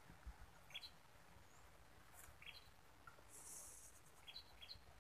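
Near silence, with faint short bird chirps four times.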